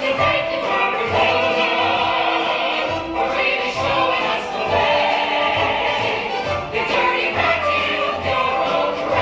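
A stage-musical ensemble singing a show tune together over instrumental accompaniment with a steady low beat.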